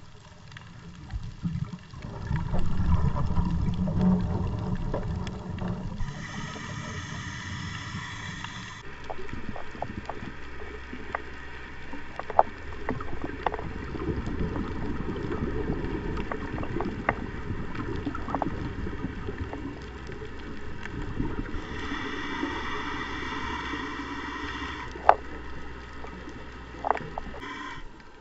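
Scuba diver's regulator breathing, heard underwater: low bubbling exhales alternate with hissing inhales, two breaths in all. Scattered sharp clicks run through it.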